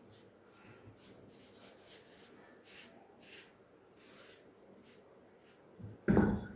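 Faint rubbing and brushing as a hand sweeps ground moong dal across the lower stone of a stone hand quern (enthiram). About six seconds in there is a short, heavy stone-on-stone knock and scrape as the upper millstone is set back down over the spindle.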